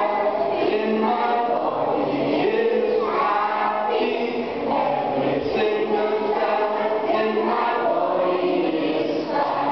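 A group of voices singing a song together in unison, led by a man singing into a microphone.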